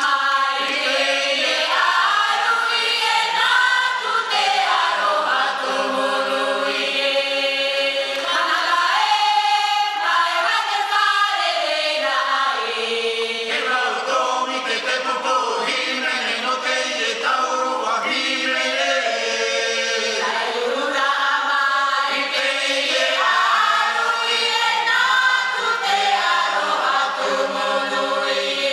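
Tahitian himene choir singing unaccompanied, many voices together in layered harmony.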